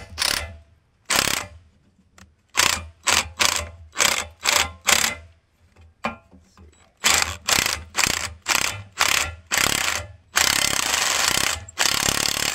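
DeWalt cordless impact wrench hammering on a nut welded to a rusted scissor jack's seized threaded rod, trying to break it loose. It goes in many short trigger bursts, two to three a second, then two longer continuous runs near the end.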